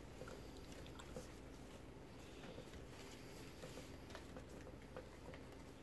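Faint soft ticks and rustles of cardboard trading cards being handled and sorted in the hands, over quiet room tone.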